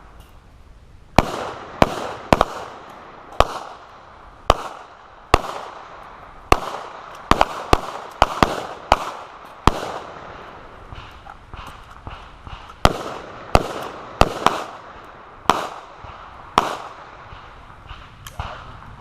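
Gunfire from AR-style carbines and pistols: about twenty sharp shots at an irregular pace, some in quick pairs and short strings, with brief gaps between them. The shooters are firing three-round magazines, reloading in between and switching from carbine to pistol.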